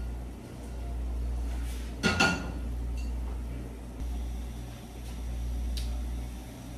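A low kitchen hum that swells and fades every couple of seconds, under a faint hiss from shrimp and vegetables cooking in pans on a lit gas stove. One ringing metal clink of cookware about two seconds in.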